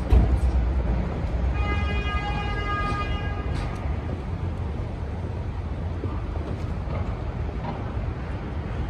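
City street traffic: a steady low rumble of passing vehicles, louder for a moment at the start. A pitched tone, like a horn or brake squeal, is held for about two seconds from about a second and a half in.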